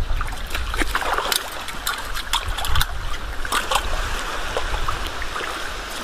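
Rubber boots wading through shallow seawater, with repeated splashes and sloshing as each foot lifts and plants among the rocks.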